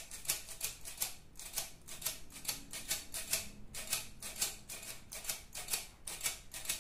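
Metal squeeze-handle flour sifter being worked to dust powdered sugar, its handle and agitator clicking and rasping against the mesh in a steady rhythm of about three or four strokes a second.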